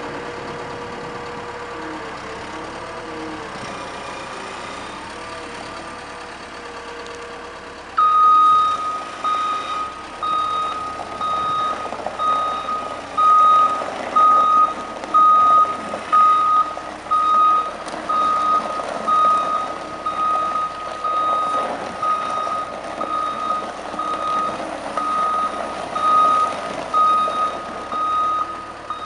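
Caterpillar M315D wheeled excavator's diesel engine running. About eight seconds in, its travel alarm starts beeping about once a second and keeps on while the machine drives, the beeps louder than the engine.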